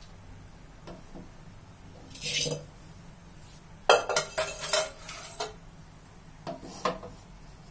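Metal pots and kitchen utensils clinking and knocking: a short scrape about two seconds in, then a quick run of clinks between about four and five and a half seconds, and two more near the end.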